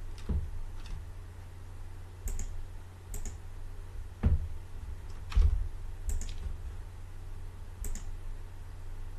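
Scattered clicks of a computer mouse, some in quick press-and-release pairs, with a couple of duller thumps, over a low steady hum.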